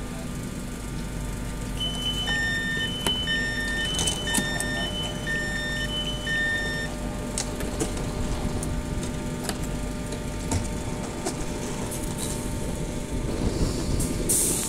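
Door warning alarm of a Mark 4 passenger coach sounding as its doors open: a two-tone beep, high then low, repeating about once a second for some five seconds. Under it is the steady hum of the standing train and platform noise, with clicks and rustles from boarding passengers and their wheeled suitcases growing louder near the end.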